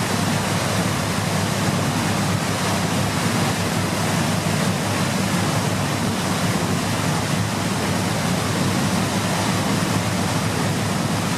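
Waterfall: water falling and splashing in a steady, dense rush with a deep low rumble.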